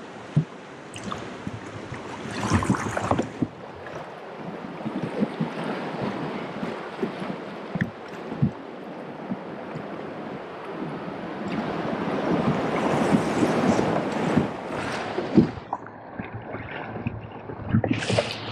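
Fishing kayak being paddled through a rocky river riffle: rushing, splashing water and paddle strokes, with scattered knocks and wind on the microphone. The water swells louder twice, about two seconds in and again about twelve seconds in.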